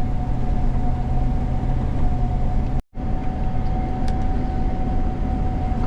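Gleaner combine running steadily, heard inside the cab: a constant low drone with a thin steady whine over it. About halfway through the sound drops out for a moment at an edit cut, then the same running sound resumes.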